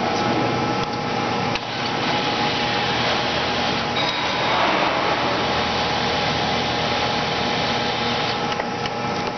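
Acer 24160G engine lathe running with its power feed engaged: a steady mechanical whir of the gear train with a faint steady whine running through it.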